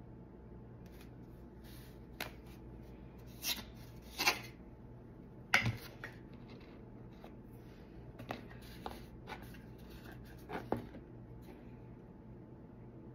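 Scattered light taps, clicks and rubs of cut wooden pieces being handled and set against each other on a work surface, with the sharpest knock about halfway through.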